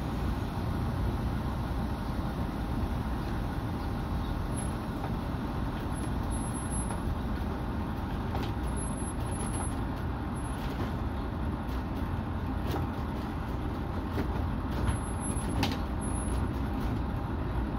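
Angels Flight funicular car rolling slowly along its track, a steady low rumble with a few sharp clicks in the second half.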